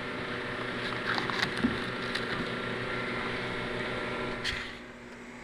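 A steady mechanical hum, like a running motor or fan, that drops away near the end, with a few faint clicks and light handling noises.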